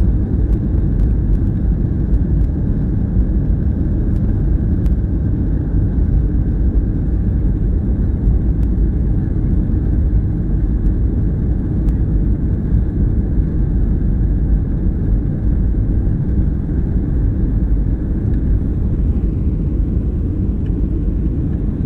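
Steady low rumble of a jet airliner taxiing, heard from inside the passenger cabin, with the engines at low power.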